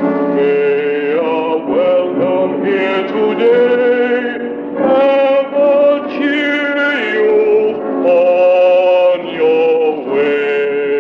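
A man singing a slow song, holding long notes with vibrato, heard from an old 8mm film's sound track.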